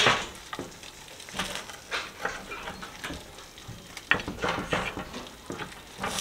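Wheel pizza cutter rolling through a crisp baked pizza crust on a metal pizza pan: a series of short, irregular crunching, scraping strokes.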